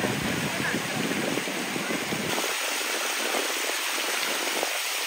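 Archibald Fountain's water jets spraying and splashing into the basin: a steady rush of falling water. A low rumble under it drops away about two seconds in.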